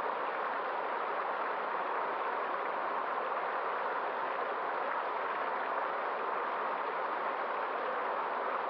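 Steady rushing of a flowing stream, an even wash of water noise with no distinct splashes or swells.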